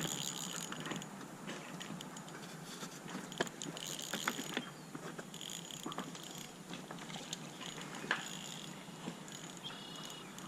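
Fishing reel being cranked, its gears ticking faintly, with scattered sharper clicks, as a hooked fish is reeled in.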